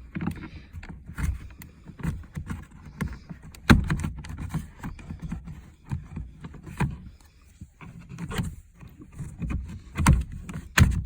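Plastic window and mirror switch panel of a Nissan 370Z door being pried and worked out of the door trim by hand: a run of scrapes, knocks and clicks as the panel and its clips shift. The sharpest knocks come about four seconds in and near the end.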